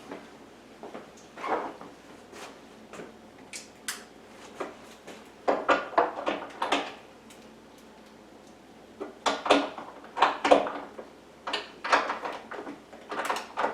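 Irregular knocks, clunks and clatter of wooden table parts and tools being handled during assembly, in short clusters with quieter gaps between.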